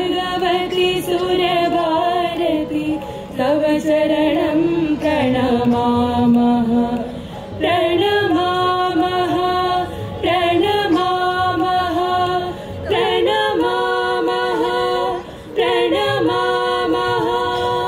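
Voices singing a devotional invocation to Goddess Saraswati, unaccompanied, in about six phrases of held, wavering notes with brief pauses between them.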